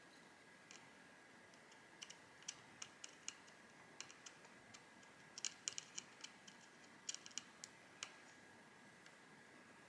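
Faint small clicks and taps, scattered and irregular, from tiny phone screws and a precision screwdriver being handled and set down, with a faint steady high whine underneath.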